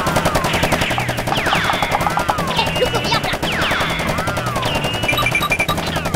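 Rapid-fire gunfire sound effect dubbed over a toy blaster: a fast, unbroken stream of shots with laser-like zapping sweeps rising and falling on top, about once a second.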